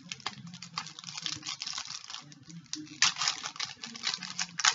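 Foil trading-card pack wrapper crinkling and crackling as it is torn and peeled open by hand, loudest about three seconds in and again near the end.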